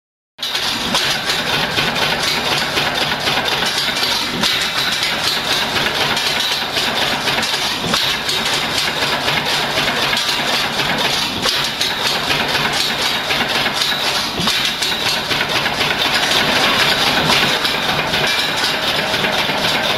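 Fairbanks-Morse 15 HP stationary engine running steadily, a fast even mechanical clatter that keeps up without a break.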